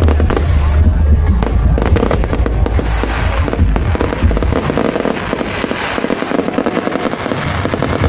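Fireworks display going off in rapid succession, a dense crackle of many bursts and pops. A heavy low rumble runs under it and drops away about halfway through.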